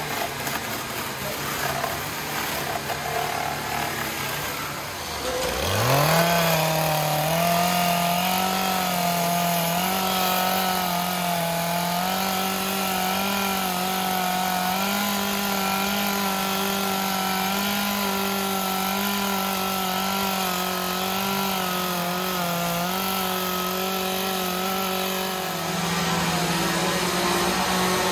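Small Stihl two-stroke chainsaw throttled up from idle about five seconds in, then held near full revs while carving wood, its pitch wavering slightly with the load. Before it revs there is a duller mixed noise.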